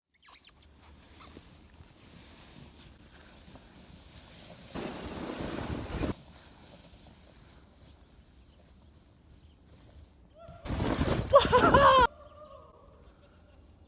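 A sled sliding over snow gives a rush of noise lasting about a second, about five seconds in. Near the end a young child lets out a loud high squeal, its pitch bending up and down, over another rush of sliding noise.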